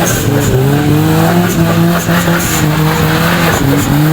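Race car engine sound, revving in repeated rising sweeps of pitch over a steady low hum.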